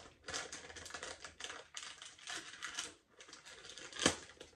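MRE packaging pouches rustling and crinkling as they are handled, with a sharp tear about four seconds in as a pouch is ripped open.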